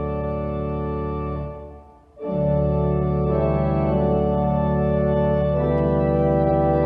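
Church organ playing a hymn in sustained chords. About two seconds in it breaks off briefly, then comes back in louder.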